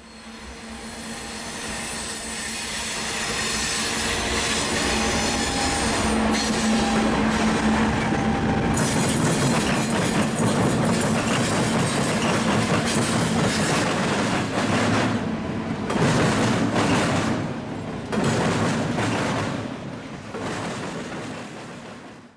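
BNSF diesel-hauled freight train passing: the locomotives' engines drone, growing louder over the first few seconds as they come by, then double-stack container cars roll past with their wheels clicking and clattering over the track joints and crossing in the second half.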